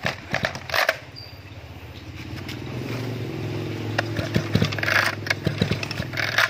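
Small two-stroke brush-cutter engine, a Mitsubishi T180, starting up: a few knocks of handling in the first second, then the engine catches about two seconds in, rises and settles into a steady idle.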